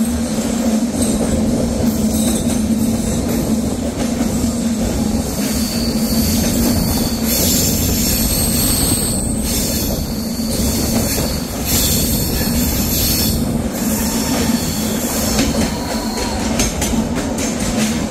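Visakhapatnam–Kirandul passenger train running on the rails with a steady rumble, and the wheels squealing high-pitched, on and off, from about six seconds in until about fifteen seconds.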